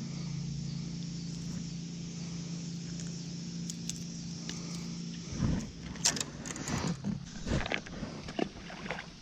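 A steady low mechanical hum, with scattered sharp clicks and light rattles over the second half.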